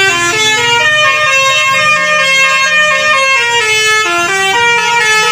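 Indonesian 'telolet' bus horn playing its tune: a run of held, steady notes that step up and down in pitch without a break.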